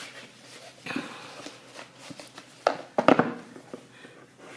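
Rustling and handling of a ribbon-tied gift box as it is unwrapped, with a few sharp knocks about three seconds in.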